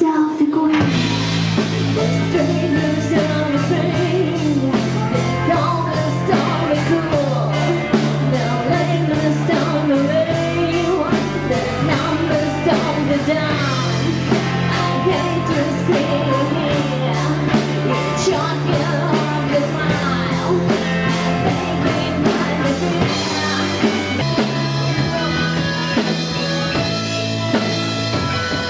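Live rock band playing with a woman singing lead into a microphone, over electric guitar, keyboards, bass guitar and drums keeping a steady beat.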